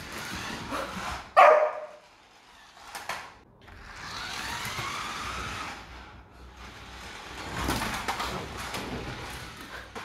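Beagle puppy giving a short bark about a second and a half in, with longer stretches of a steady rushing noise later on.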